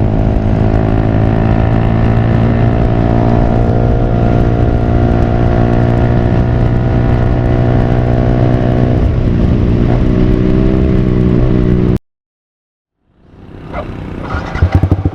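Yamaha R15 V3's single-cylinder engine running through a Villain Pro1 full-system aftermarket exhaust while the bike is ridden, holding a steady note and then shifting pitch about ten seconds in. The sound cuts off abruptly about twelve seconds in and then comes back as the engine fades in again.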